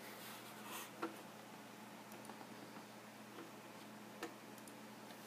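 Quiet room tone with a faint steady hum and a few scattered soft clicks, the two clearest about a second in and about four seconds in.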